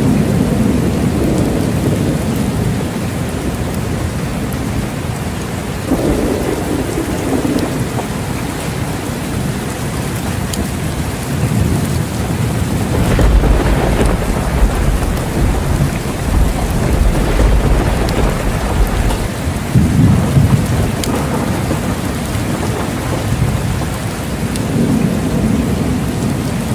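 Steady heavy rain with rolling thunder: several low rumbles swell and fade, the longest and deepest in the middle stretch, with a sharper crack about six seconds in.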